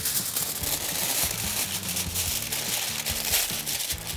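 Aluminium foil crinkling and rustling as it is folded closed into a packet around vegetables, over background music with a steady bass line.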